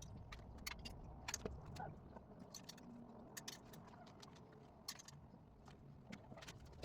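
Faint, scattered light clicks and clinks over a low steady hum.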